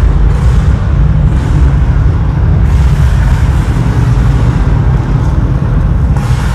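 Recorded battle soundscape playing over loudspeakers in a panorama rotunda: a loud, steady deep rumble with a hissing wash above it.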